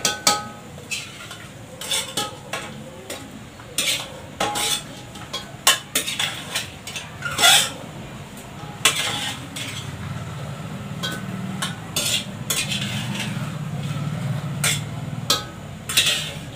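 A metal ladle repeatedly clinking and scraping against steel pots as cooked chicken is spooned into masala frying in the pot, with a sizzle underneath.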